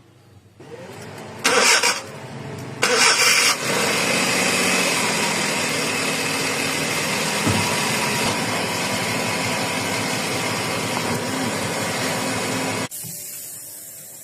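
Small vehicle engine cranked and started: two short loud bursts, then running steadily until it cuts off abruptly near the end.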